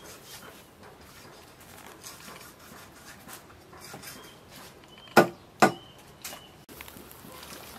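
Metal cooking-pot lid clanking twice in quick succession about five seconds in, over a low, steady background.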